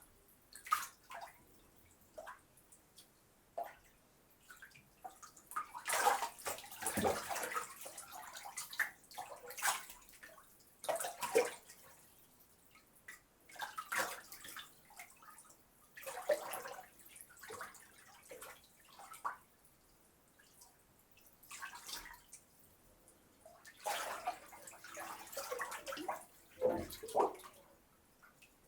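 A person bathing: water splashing and pouring in irregular surges, with drips in the quieter gaps between.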